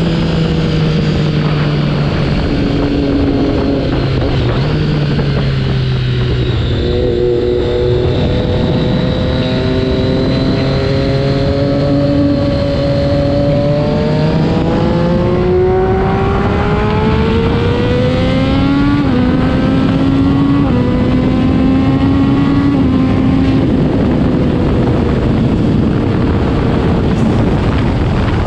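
Triumph Daytona 675R's inline-three engine through a Yoshimura Alpha full exhaust, riding with heavy wind blast on the microphone. The engine pitch rises and falls with the throttle, climbing steadily for several seconds around the middle, with short steps as gears change.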